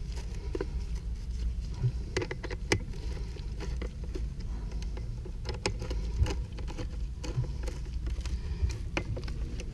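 Scattered clicks and scrapes of gloved hands handling a rubber pipe coupling and its metal band clamp on ABS sewer pipe, over a steady low rumble.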